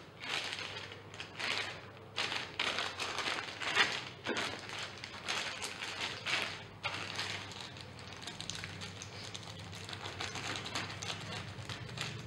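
Plastic courier mailer bag crackling and rustling as it is handled and cut open with scissors, the crackle densest and loudest in the first half.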